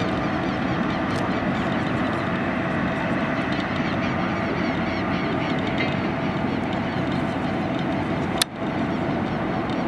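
Steady noise of jet airliners at an airport: distant turbofan engines running as planes roll along the runway and taxiway. A single sharp click and a momentary dip in level come about eight and a half seconds in.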